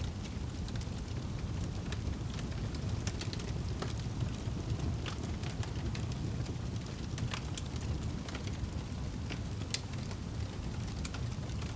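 Wood fire crackling, with scattered sharp pops and snaps over a steady low rumble of the burning fire.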